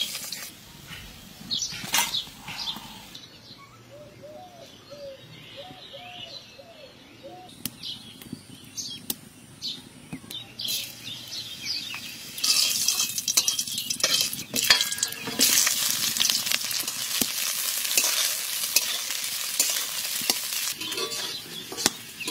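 A metal spoon clinks and scrapes against an iron wok, then about halfway through a loud, steady sizzling starts as spices are fried in hot oil in the wok.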